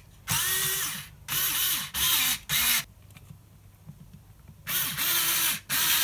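Handheld electric screwdriver running in several short bursts, its motor whine rising as each burst starts and falling as it stops, with a pause of about two seconds midway. It is driving a screw into a plastic model part to cut the screw threads.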